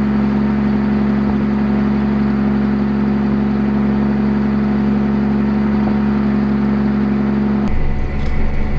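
John Deere 7230R tractor's six-cylinder diesel engine running at a steady working speed, heard inside the cab as a constant drone. Near the end the sound changes abruptly to a rougher, less even cab noise.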